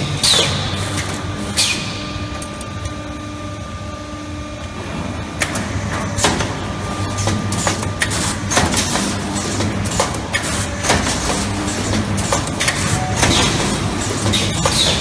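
Automatic steel-wire hook-row forming and ball-head welding machines running: a steady hum under frequent sharp metallic clicks and clanks. The clicks thin out about two to five seconds in, then come thick again.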